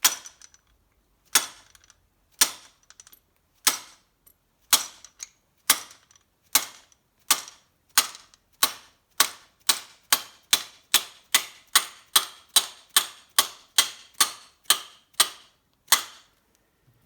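Dead blow hammer striking a socket to drive a tight piston pin into a piston: a long series of sharp taps, about one a second at first, quickening to around three a second, then stopping.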